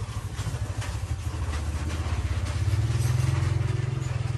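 A small engine running steadily at a low, throbbing pitch, growing a little louder about halfway through, with faint clinks of a metal ladle in an aluminium pot.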